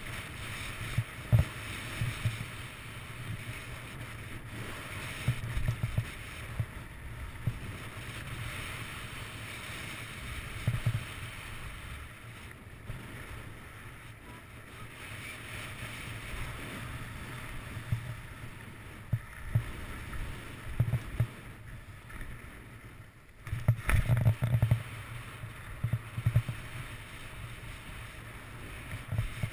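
Skis hissing and scraping over packed snow on a downhill run, with wind buffeting the action camera's microphone in gusty low rumbles. It goes briefly quieter a little over twenty seconds in, then a few loud buffets and knocks follow.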